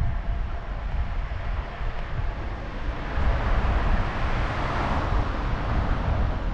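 Wind rumbling on the microphone, with a vehicle passing: a rushing noise swells to a peak about five seconds in and then dies away.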